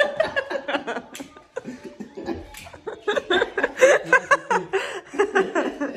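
Laughter with a few words mixed in, strongest from about halfway through as quick repeated ha-ha pulses.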